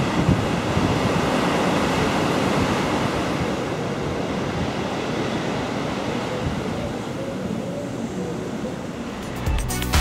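Steady sea surf breaking on the beach below, mixed with wind on the microphone. Music with a beat starts near the end.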